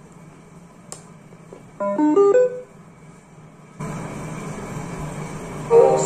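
A click, then a short stepped electronic chime, the power-on or connection tone of a homemade speaker's Bluetooth module. A steady hiss comes in from the speakers, and music starts playing through them near the end.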